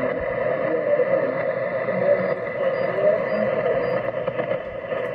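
Shortwave single-sideband reception on a Kenwood HF transceiver: a weak voice from an oceanic weather broadcast, largely buried in steady static and hiss, with the narrow, tinny sound of sideband audio.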